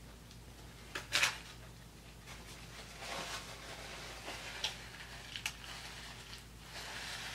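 Aluminium foil wrapper crinkling as a foil-wrapped burger is handled and set down, with a sharp crackle about a second in and softer rustles after. A paper napkin rustles against the mouth near the end.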